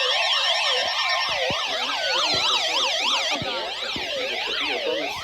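Several sirens wailing together at different pitches, each sweeping quickly up and down about twice a second.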